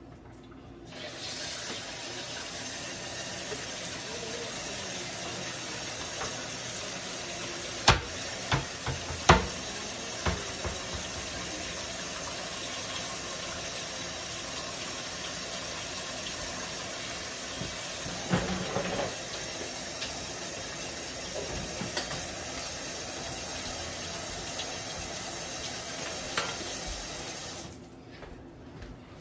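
A steady hiss that switches on about a second in and cuts off suddenly near the end, with a few sharp knocks and clanks of a utensil against a cooking pot, a cluster of them about eight to ten seconds in.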